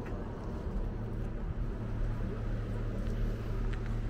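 Bus engine running with a steady low hum, heard as road-vehicle noise.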